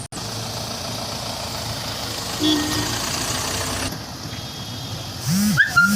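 A vehicle engine idling steadily under outdoor background noise, with a brief rising-and-falling call near the end.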